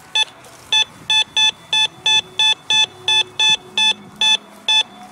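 Teknetics Ameritek Minuteman metal detector giving a short, high-pitched beep over and over, about two to three times a second, as the coil is swept back and forth over a buried target. The repeated signal marks a coin-range target that reads as a dime or a penny.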